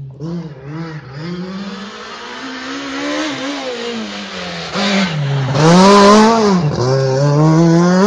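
Rally car engine approaching and sweeping through a hairpin, the revs rising and dropping sharply several times, loudest about six seconds in as it passes close with a brief burst of hiss, then rising steadily as it accelerates away.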